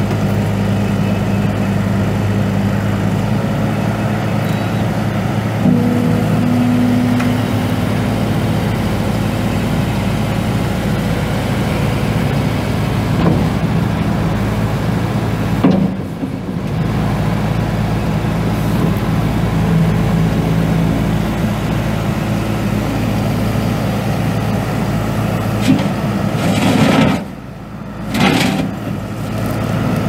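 Kubota SVL95-2 skid steer's four-cylinder turbo diesel engine running steadily. The sound drops briefly twice near the end.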